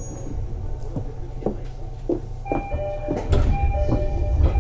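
Inside a 205-series 600-subseries electric commuter train: the steady low rumble of the carriage, with a run of knocks and clunks and steady tones coming in about two and a half seconds in, getting louder after three seconds.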